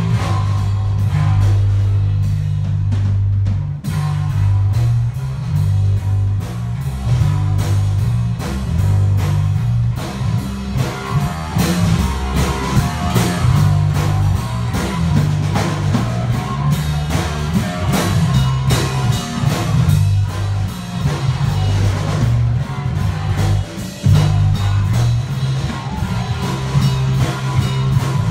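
Electric bass guitar and drum kit playing a loud improvised jam: a bass line moving between low notes under steady, busy drumming.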